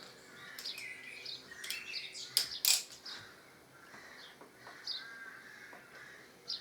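Small birds chirping and tweeting in short repeated calls, with two sharp clicks close together about two and a half seconds in.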